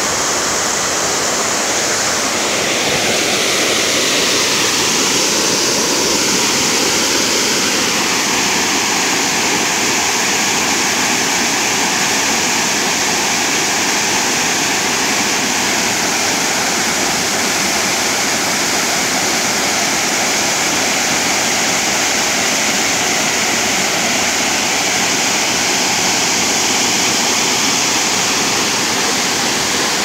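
A waterfall rushing: a steady, loud wash of falling water with no breaks.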